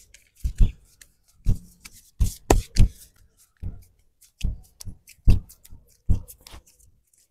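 Bare hands slapping and smacking on a person's arm and shoulder during a massage: sharp, irregular smacks about two or three a second, stopping abruptly near the end.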